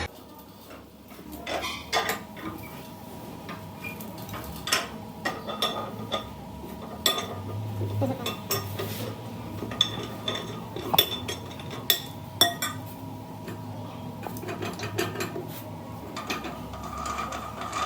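Metal tools clinking and knocking against metal in irregular strikes, a few of them sharp and ringing.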